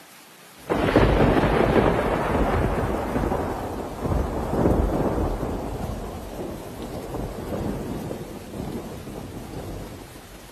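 A loud clap of thunder breaks in under a second in and rolls on as a long rumble, surging again about four seconds in and slowly fading, over the steady hiss of heavy rain.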